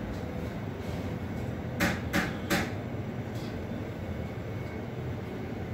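Three quick sharp knocks close together about two seconds in, over a steady low background hum.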